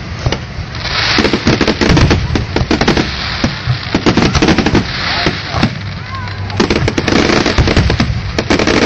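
Fireworks display going off in a dense, continuous barrage of rapid bangs and crackling, with hissing swells about a second in and again around five seconds.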